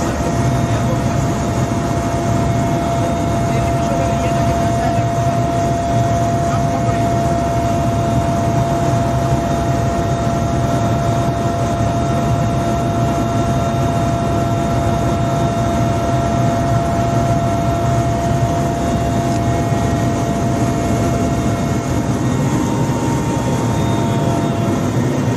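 Helicopter turbine engines and rotor in flight, heard from inside the cabin: a steady, loud drone with a high whine over it.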